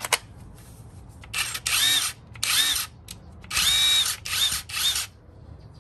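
A cordless impact wrench on a truck's lug nuts runs in about six short trigger bursts, its motor whining up and falling away in each.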